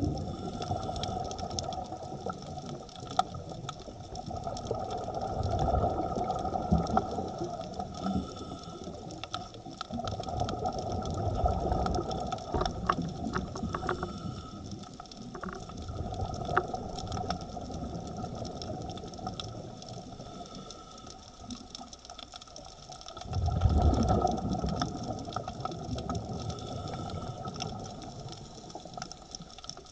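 Underwater sound through a diving camera: muffled water noise with the diver's exhaled regulator bubbles rushing in swells every few seconds, the loudest about three-quarters of the way through, over a steady faint whine.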